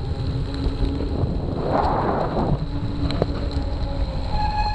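Wind buffeting the microphone of a camera mounted on a moving bicycle, a heavy low rumble. A brief rush of hiss comes about two seconds in.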